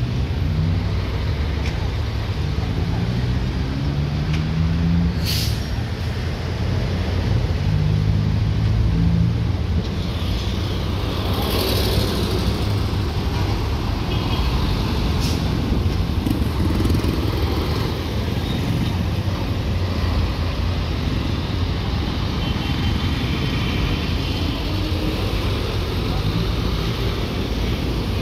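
Steady traffic on a busy multi-lane road: a low rumble of cars, buses and trucks, with an engine's pitch climbing several times in the first nine seconds as vehicles pull away. A brief hiss comes about twelve seconds in, and two sharp clicks sound about five and fifteen seconds in.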